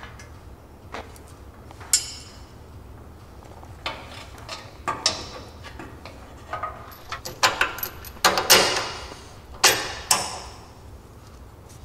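Metal suspension parts clicking, clanking and knocking as a coilover shock and spring are handled and worked into the lower control arm by hand. The knocks are scattered at first and come thicker in the second half.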